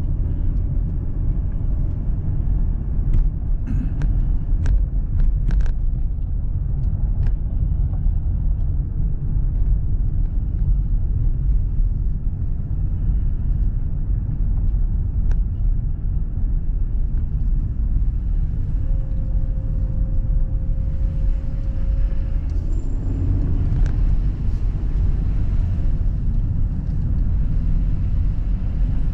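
Steady low rumble of a Mercedes car driving on a snowy road, heard from inside the cabin: tyre and engine noise. A few light clicks come in the first several seconds.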